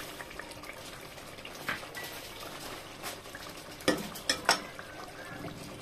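Chicken curry simmering in a pot with a faint, steady sizzle, while a slotted spatula knocks against the pot a few times, the loudest knocks about four seconds in.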